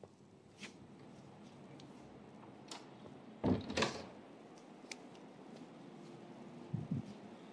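Handling knocks and taps from a handheld phone being moved about, with a loud double knock about halfway through and another knock near the end.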